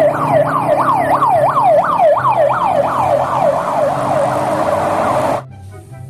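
Ambulance siren sounding a fast yelp: quick rising sweeps repeating about three times a second. It cuts off suddenly near the end.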